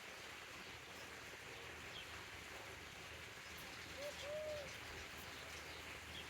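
A dove cooing faintly once, a short two-part coo about four seconds in, over quiet outdoor hiss.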